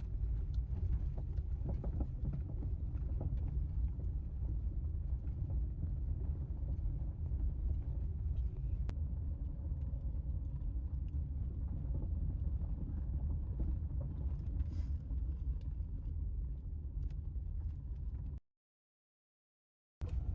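Steady low rumble of a car in motion, like road and engine noise heard inside the cabin. It cuts to dead silence for about a second and a half near the end, then comes back.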